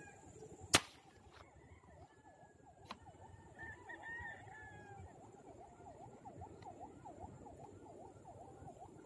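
A single sharp crack of an airgun fishing rifle firing about a second in, the loudest sound. After it a faint wavering tone dips and rises about three times a second, with a few faint chirps.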